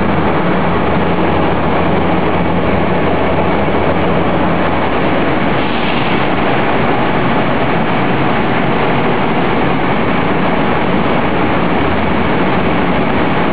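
Industrial machinery running steadily: a loud, even mechanical noise over a low hum that does not change.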